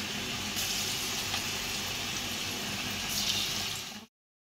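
Dhoka (gram-flour cake) pieces shallow-frying in hot oil in a kadai: a steady sizzle that swells louder about half a second in and again near the end, then cuts off abruptly.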